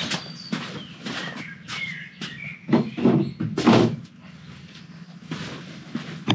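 Scattered knocks and thuds, with a louder pair of thuds about three seconds in and a bird chirping briefly about two seconds in.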